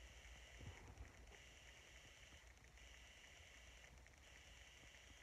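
Near silence: room tone with a faint low hum and a faint high hiss that pulses on and off about every second and a half.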